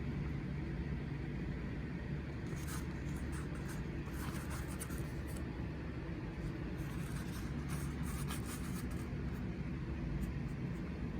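Paper rustling in short, scattered bursts as a folded instruction leaflet is handled, over a steady low hum.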